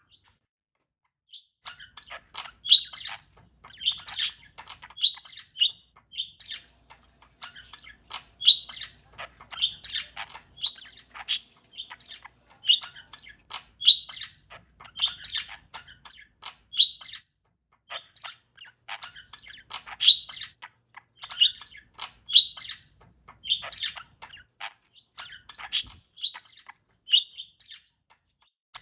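Pet parakeet chirping in a quick, busy run of short, sharp chirps and squawks that starts after about a second of silence.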